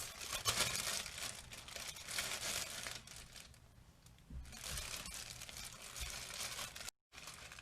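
Plastic packaging crinkling and rustling as it is handled and pulled off, in two spells with a short lull between; the sound cuts out for an instant near the end.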